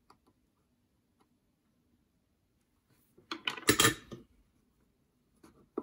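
Soldering tools being put down after a joint: a few faint ticks, then a brief cluster of metallic clinks and clatter about three and a half seconds in.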